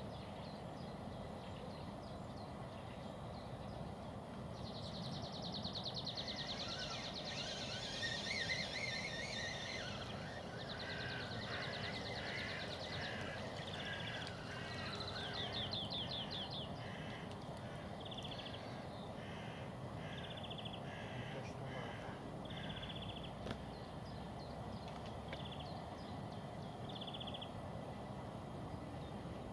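Songbirds singing: high rapid trills and warbling, followed by a series of short high phrases repeated about once a second, over a steady low background hiss.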